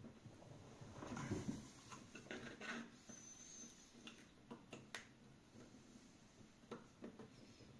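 Faint clicks and scrapes of metal pliers gripping at the edge of a small wooden block, with a short handling rustle about a second in and scattered single clicks after it.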